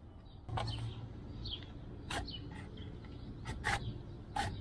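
A few short falling chirps, like a bird's, and several sharp clicks or taps over a low steady hum.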